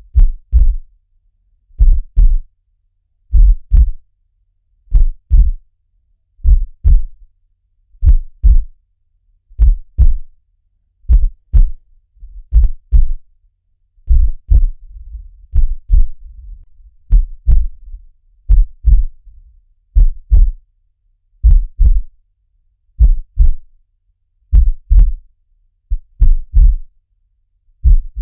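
Heartbeat: a slow, steady lub-dub of paired low thumps, about one beat every second and a half.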